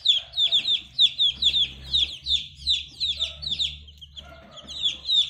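Native chicken chicks, a week or two old, peeping loudly in a fast overlapping run. Each peep is a short high note falling in pitch.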